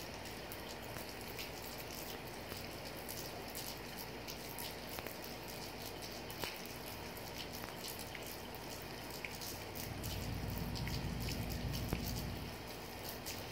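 Gentle rain falling on wet pavement and puddles, many small drops ticking and dripping. A low rumble swells for a couple of seconds near the end.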